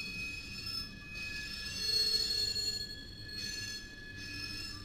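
Train wheels squealing, several high steady tones that shift and switch abruptly, over the low rumble of the moving train.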